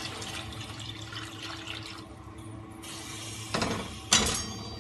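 Hot water poured from a steel bowl into a pot of curry, splashing for about the first two seconds. Near the end come two sharp metal clanks as the steel bowl is set down on the stove grate.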